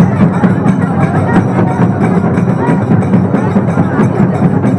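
Dhol-tasha ensemble playing a fast, steady rhythm: deep dhol barrel drums under sharp tasha drum strokes, with crowd voices beneath.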